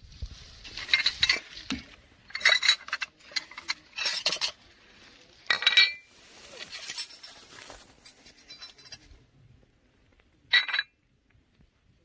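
White porcelain cup and saucer clinking as they are set out on a rock: a handful of short clinks with a brief ring, then one last sharp clink near the end.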